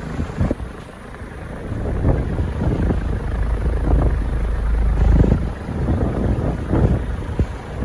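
Ventex commercial ceiling fan running, a steady low whooshing rumble with uneven gusty surges, growing louder about two seconds in.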